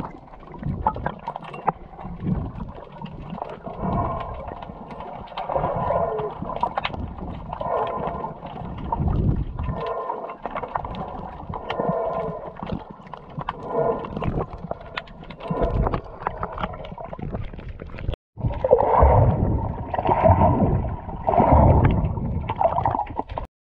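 Muffled sea water heard through an underwater camera: sloshing and gurgling with knocks, swelling in surges about every two seconds. The sound breaks off for a moment about eighteen seconds in.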